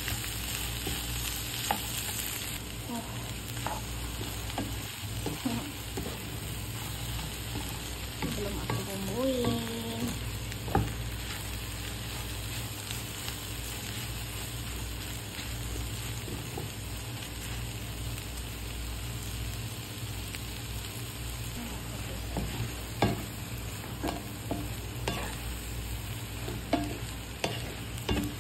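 Green beans, carrots and egg sizzling in a hot wok while a wooden spatula stirs them, with scattered clicks and scrapes of the spatula against the pan. The sizzle is loudest in the first couple of seconds, then settles to a steady hiss.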